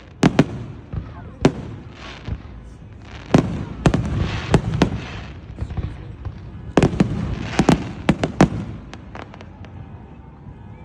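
Fireworks display going off: a series of sharp bangs in quick clusters, with dense crackling volleys about four and seven seconds in.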